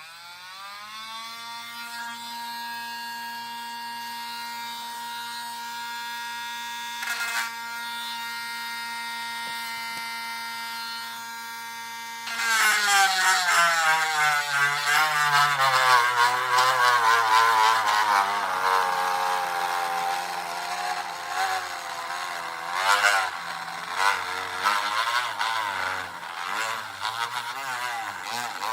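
Small electric power tool, such as a drill or rotary tool, spinning up and running free at a steady pitch. About twelve seconds in it gets louder and rougher, its pitch wavering as it bites into the work under changing load.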